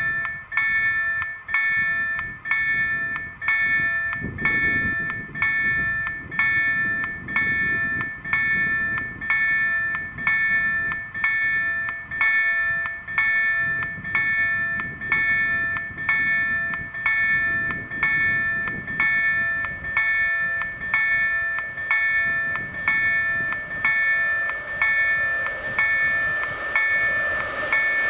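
Electronic level-crossing bells (EDE-1 acoustic signals) strike over and over in a steady rhythm, each stroke a metallic ring that fades before the next one, warning that the crossing is closed. Near the end, a rising rush of noise builds underneath, as a train approaches.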